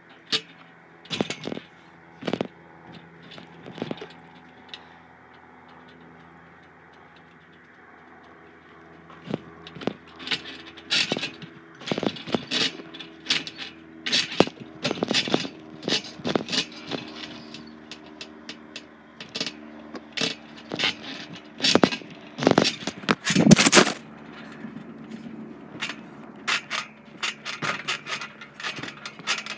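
Someone jumping on a backyard trampoline: irregular thumps of the mat with the metal springs rattling and creaking. A few single thumps come at first, then after a lull a long quick run of them starts about nine seconds in, loudest a little past the two-thirds mark, over a faint steady hum.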